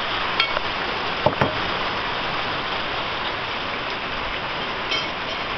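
Heavy rain falling steadily, a dense even hiss, with a couple of small knocks about a second in.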